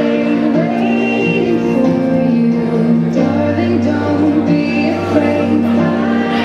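Music with a woman singing.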